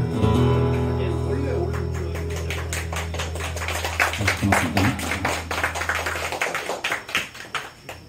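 Two amplified acoustic guitars playing an instrumental passage with fast, percussive strumming. Low notes ring under it until about six seconds in, then the strumming carries on alone and stops near the end.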